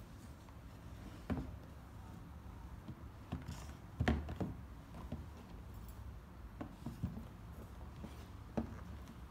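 Leather sneakers being handled and set down on a cardboard shoebox: scattered soft knocks and rustles, the loudest about four seconds in, over a low steady background rumble.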